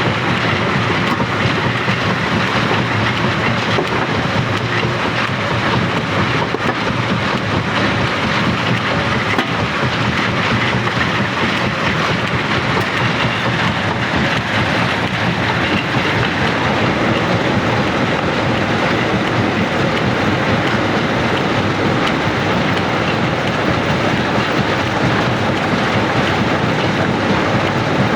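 Rock crusher running under load, stones grinding and rattling through it in a steady dense clatter.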